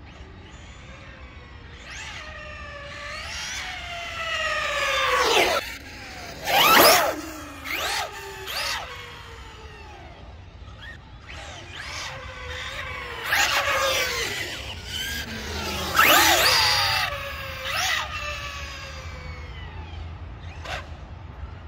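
Arrma Limitless 6S RC car's brushless motor and drivetrain whining at high speed, the pitch climbing and then dropping steeply as the car runs past the microphone. Two loud close passes.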